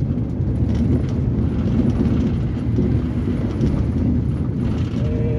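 Steady engine and road noise of a moving car, heard from inside the cabin.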